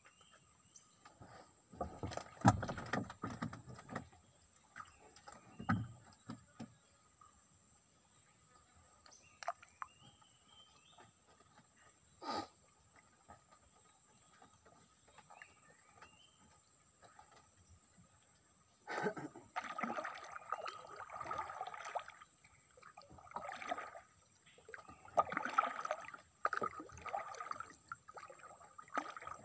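Wooden paddle dipping and splashing in calm water as a small wooden boat is paddled, in short bouts of strokes in the last third. Earlier come scattered knocks and rustles of handling in the boat and one sharp click.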